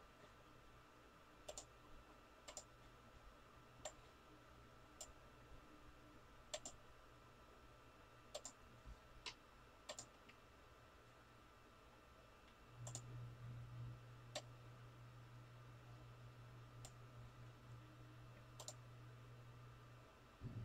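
Faint, irregular computer clicks, about a dozen spread out with pauses between them. A low steady hum comes in about two-thirds of the way through.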